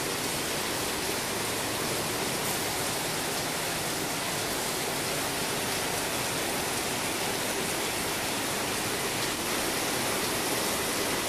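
Rain pouring steadily onto a tiled courtyard, an even hiss with no let-up.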